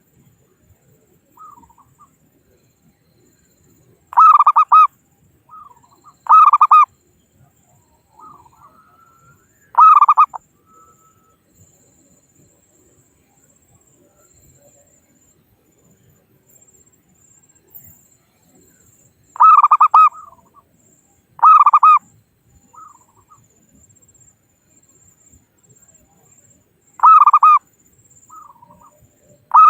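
Zebra dove (perkutut) cooing: short, loud, rapidly pulsed coos repeated at irregular intervals of a few seconds, each with a softer note or two beside it.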